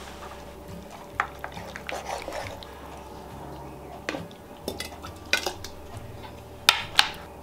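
Metal ladle scooping pulled pork mixture from a pan and tipping it through a canning funnel into a glass mason jar: scraping and irregular clinks of the ladle against pan, funnel and jar, with two sharp clinks near the end.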